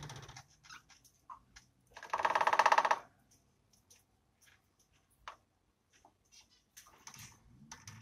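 Male cockatiel tapping its beak rapidly on a hard surface in its cage, a courtship display to draw the female that shows he has found a nest site. A loud run of fast taps lasts about a second, about two seconds in, with scattered single taps before and after.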